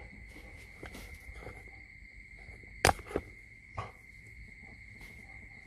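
A few sharp clicks and knocks as a Rottweiler shifts about its whelping pen, the loudest pair about three seconds in, over a steady high-pitched trill.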